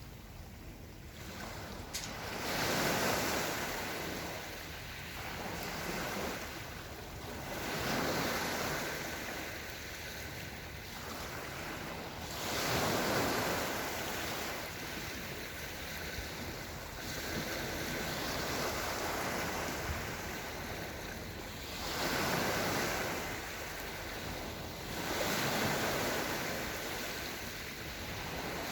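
Small sea waves washing onto the shore, swelling in a surge every few seconds and ebbing between. There is a single sharp click about two seconds in.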